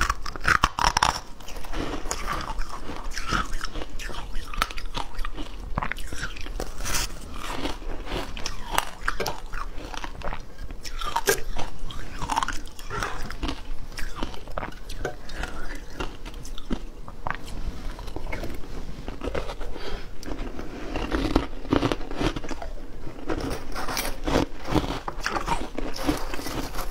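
Close-miked biting and chewing of blocks of frozen shaved ice dipped in passion fruit pulp: a dense, irregular run of crisp crunching cracks.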